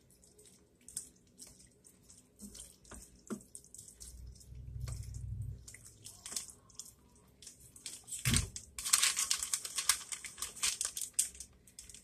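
A spoon stirring cheese into saucy pasta in a skillet: wet squishing with small scattered scraping clicks. A thud comes just past 8 seconds in. A plastic bag of shredded cheese then crinkles for a couple of seconds as cheese is shaken out of it.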